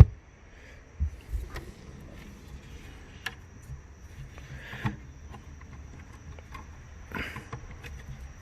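Scattered clicks, knocks and light thumps from parts being handled and fitted in a car's trunk, with a sharp knock at the very start and a few dull thumps about a second in. A faint steady high whine runs underneath.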